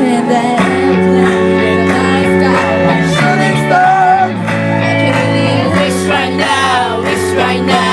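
Live band music with sustained chords over a bass line that changes every second or two, and a wavering melody line above.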